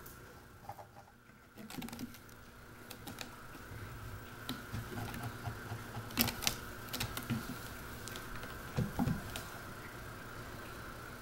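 A two-legged cat pulling itself up a sisal-rope scratching post with its front claws: irregular scratching and clicking of claws in the rope, with soft thumps on the carpeted tower, loudest about six and nine seconds in.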